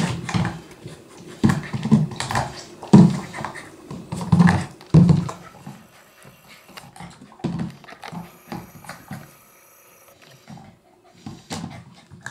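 Eight-week-old puppy growling and yapping in short bursts as it plays with its toys, loudest in the first half, then quieter knocks and scuffles of the toys on the floor.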